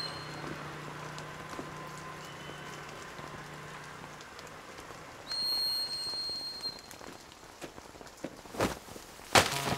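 Steady rain falling, an even hiss with scattered drops. Near the end come two sudden sharp hits, the second the louder.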